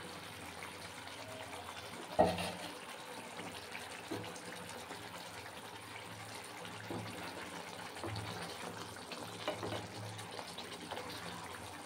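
Yogurt-based fish curry (doi katla) simmering in an open pan, a steady bubbling sizzle with small pops, and one sharp knock about two seconds in.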